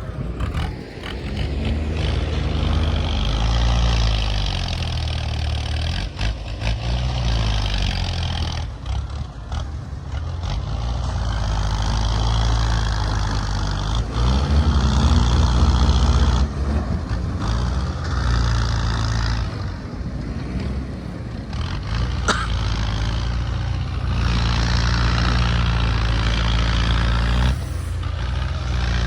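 Heavy diesel earthmoving machinery working: the engine runs under load, its pitch rising and falling repeatedly as it revs up and eases off.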